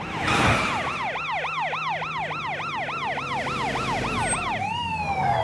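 Police car siren yelping, its pitch sweeping rapidly up and down about three times a second, then winding down in one slow falling wail near the end.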